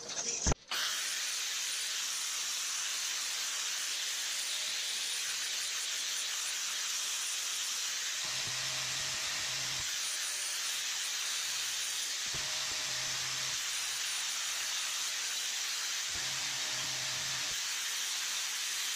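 A knock about half a second in, then an electric angle grinder runs steadily with an abrasive disc grinding a steel part clamped in a bench vise, a constant high hiss.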